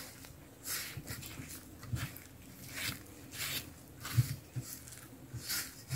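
Stiff yeasted bread dough, grown too heavy for the whisk, being worked in a bowl: soft squelching strokes about every two-thirds of a second, with a few dull knocks.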